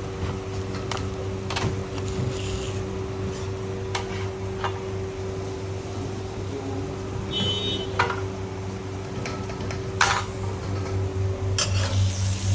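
Kitchen work: a steady low electrical hum of kitchen equipment with occasional clinks and knocks of utensils and dishes, the sharpest about 8 and 10 seconds in, and a brief high squeak or beep about 7.5 seconds in.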